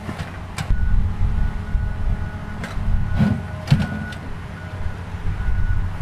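Small portable generator's engine running with a steady low hum. A few sharp knocks and clicks stand out, mostly around the middle.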